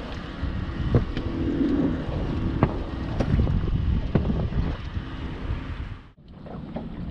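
Wind buffeting the microphone in an open aluminium boat, with occasional sharp knocks and clatter from handling in the boat. The sound drops out briefly about six seconds in, then the wind noise resumes.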